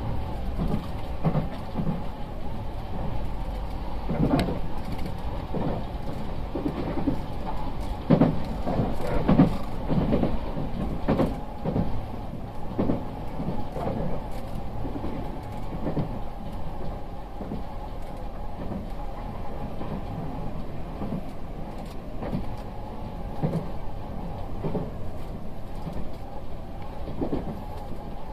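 Nankai airport express electric train running between stations, heard from inside the car: a steady low rumble with irregular knocks from the wheels on the rails.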